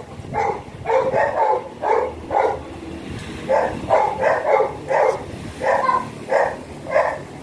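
A dog barking repeatedly in short barks, some in quick pairs, with brief pauses between them.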